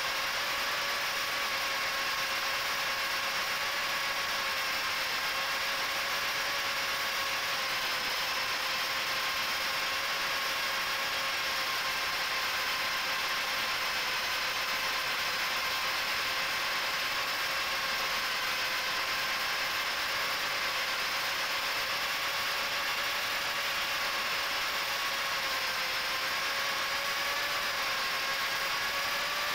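Whine of a 2S micro FPV quadcopter's HGLRC 1104 7500kv brushless motors spinning Gemfan 3018 props in cruising flight, holding a fairly steady pitch with small wobbles, over a steady hiss.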